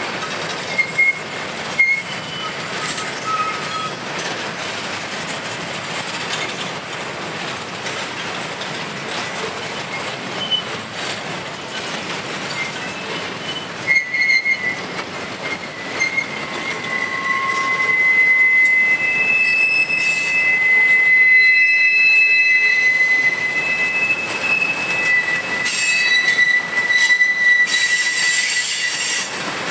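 Freight train of boxcars, tank cars and covered hoppers rolling past, with a steady rumble of wheels on rail and scattered knocks. From about halfway in, a high, steady squeal rings from the wheels, and the train grows louder.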